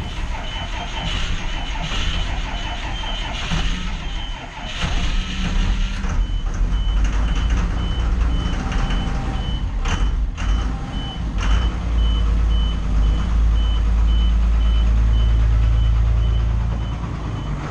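School bus warning beeper sounding in quick, steady beeps over a low engine rumble that grows louder in the last few seconds.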